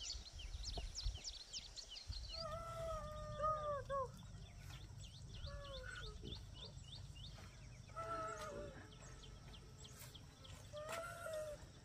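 Small birds chirping in quick, high-pitched runs, with four drawn-out calls from a farm animal, each about a second long, and a low outdoor rumble underneath.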